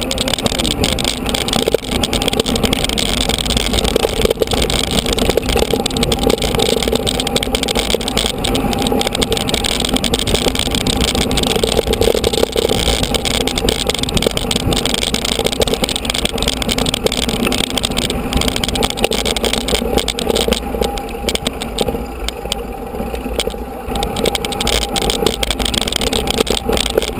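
Steady rush of wind and rattling of a mountain bike riding over a rough dirt trail, as picked up by an onboard action camera. It eases briefly late on.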